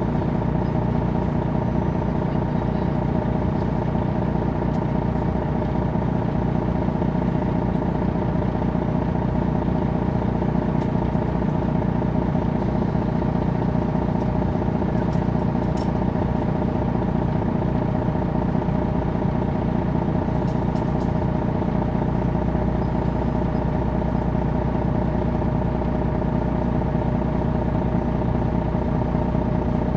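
2001 MCI D4000 coach's Detroit Diesel Series 60 engine running at a steady pitch: a constant, even drone with no revving.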